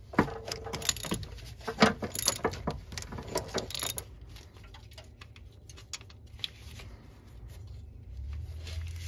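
Ratchet, socket and wobble-head extension working an AC compressor mounting bolt: irregular sharp metal clicks and clinks for about four seconds, then only a few faint ticks.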